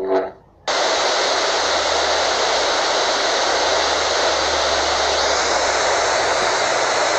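TV static hiss that cuts in suddenly under a second in and then holds steady and loud, following a brief pitched sound at the very start.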